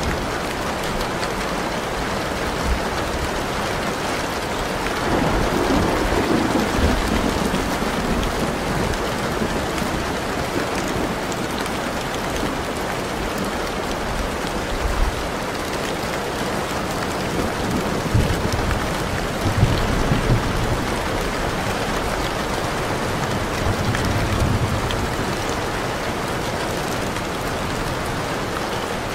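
Steady rain falling, with low rolls of thunder, the strongest about five seconds in and again around eighteen to twenty seconds in.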